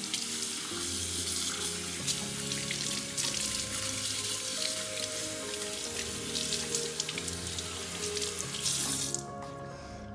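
Tap water running into a sink and splashing over a wet puppy's fur and a hand rinsing it. The water stops abruptly about nine seconds in.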